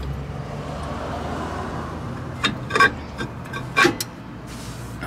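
A new rear brake drum being slid onto the hub over fresh brake shoes: a soft scrape, then several sharp metallic clicks and knocks, the two loudest near the middle, over a steady low hum.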